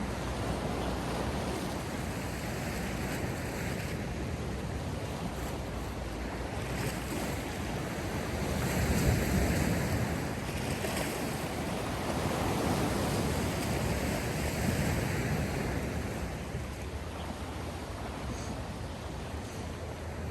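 Sea surf: waves breaking and washing ashore in a steady rush that swells in surges, loudest about nine seconds in and again a few seconds later.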